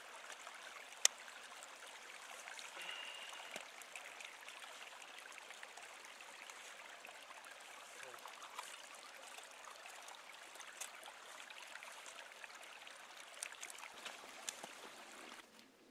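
Creek water trickling steadily at a beaver dam, with a few sharp clicks, the loudest about a second in.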